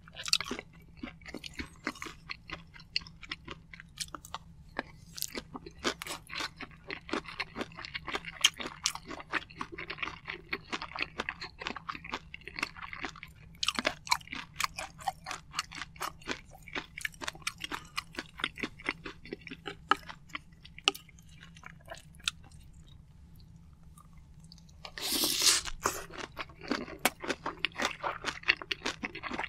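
Close-miked chewing of rice and soy-sauce-marinated raw shrimp wrapped in a sheet of seasoned laver: dense wet, sticky mouth clicks and soft crunches. The chewing eases off for a few seconds, then a louder burst of mouth noise comes about 25 seconds in as the chewing picks up again.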